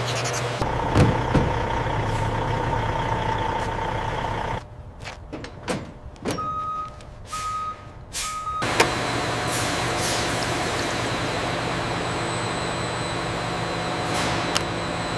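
Heavy truck running steadily. In a quieter stretch in the middle, a reversing alarm beeps three times.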